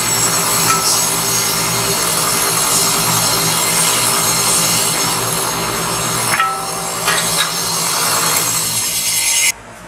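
Rim-straightening machine running with an alloy car rim turning on it, making a steady scraping rub as a tool is pressed against the inside of the rim's barrel, over a constant low motor hum. The sound cuts off sharply near the end.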